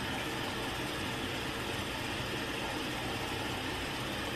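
Steady background hum with a hiss, unchanging throughout, with no distinct knocks or clicks.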